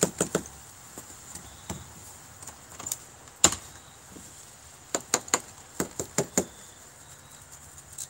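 Irregular sharp plastic knocks and clicks, about ten of them, as the clogged hose end of a Hoover Air Steerable upright vacuum is worked against wooden deck boards to clear dry pet food packed inside it. The loudest knock falls a little past halfway.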